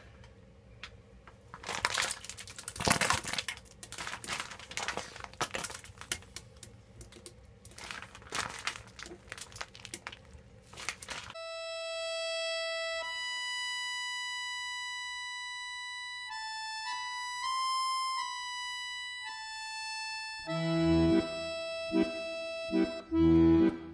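Toilet flushing: water rushing with irregular gurgles and splashes for about eleven seconds. It cuts off abruptly to music with held chords, and an accordion takes up a rhythmic tune over bass notes near the end.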